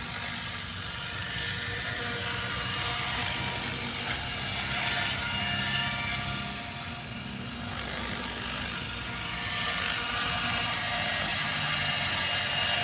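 Electric 700-size KDS RC helicopter hovering low: the steady whine of its battery-powered motor over the whir of the rotor blades, growing louder near the end as it comes closer.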